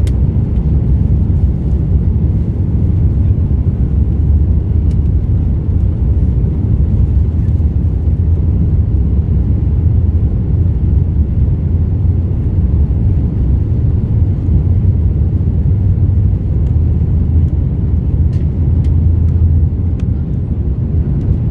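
Airbus A330-300 airliner's jet engines, a loud steady low rumble with no change in pitch.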